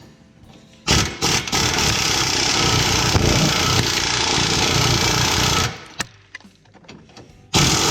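Impact wrench hammering on a rusted rear shock fastener for about five seconds, then a short second burst near the end; the bolt is stuck fast with rust.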